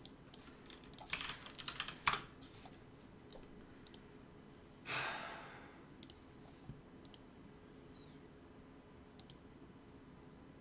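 Computer keyboard typing and mouse clicks: a quick run of key presses about a second in, then scattered single clicks. About halfway through comes a breathy exhale lasting about a second.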